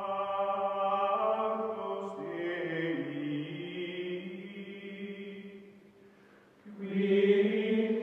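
Outro music of choir-like chanting in long held notes that shift in pitch. It fades out about six seconds in and swells back in a second later.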